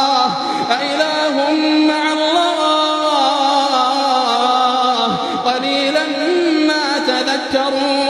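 Melodic chanted male voice holding long notes that glide slowly in pitch, in the drawn-out style of Quran recitation.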